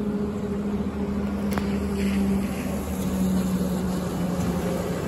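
Tram running, a steady hum over a low rumble that dips slightly in pitch partway through, with a single sharp click about a second and a half in.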